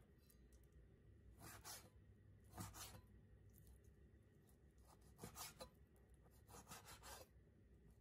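Faint strokes of a kitchen knife slicing raw pork belly on a cutting board: four separate short rasping cuts.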